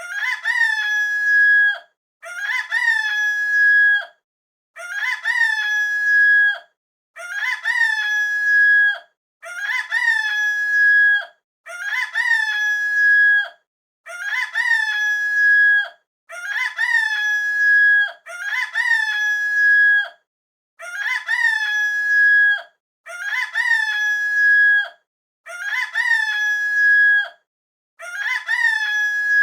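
A rooster crowing: the same crow repeated identically about thirteen times, roughly one every two and a quarter seconds, with silence between. Each crow has a short rising start and a long held final note.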